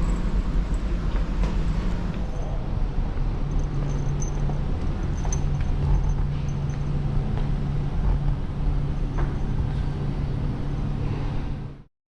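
Steady low engine drone with an even rumble, cutting off abruptly near the end.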